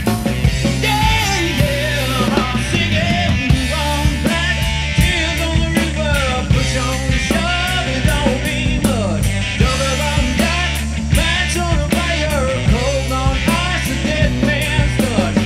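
Rock band playing a cover of a blues-rock song: drums, bass and a melody line that bends up and down in pitch.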